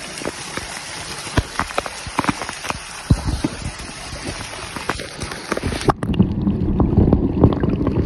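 Waterfall water splashing down a rock face close to the microphone: a steady rush dotted with many sharp spatters. About six seconds in, the sound turns abruptly muffled and rumbling for a couple of seconds as the phone is moved and the microphone is buffeted.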